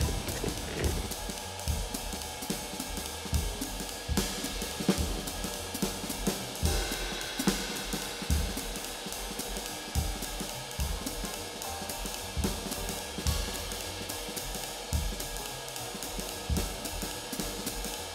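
Background music with a steady drum-kit beat, hi-hat and cymbals.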